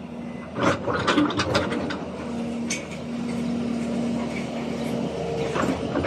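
Hydraulic excavator at work: a quick run of metal clanks about a second in, then the machine running with a steady tone for about three seconds.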